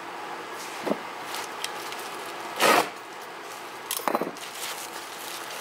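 Hands handling things on a wooden workbench: a few light knocks, a short loud rustle or scrape about two and a half seconds in, and a quick rattle of clicks about four seconds in.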